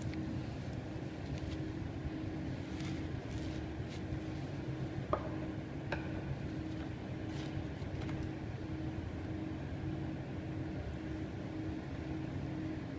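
Steady mechanical hum of room machinery with several steady low tones. Over it come faint scattered rubs and light taps from gloved hands wiping and handling a glass pane, with one sharper tap about five seconds in.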